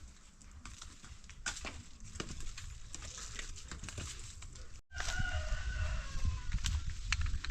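A rooster crowing once, about two-thirds of the way in: one long call sliding slightly down in pitch, over a low rumble. Scattered sharp knocks and clicks come before it.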